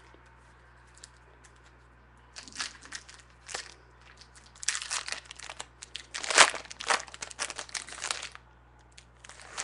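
Foil wrapper of a trading card pack being torn open and crinkled in the hands: irregular crackly rustling that starts about two seconds in, is loudest a little past the middle and dies away about a second before the end, with a brief rustle at the very end.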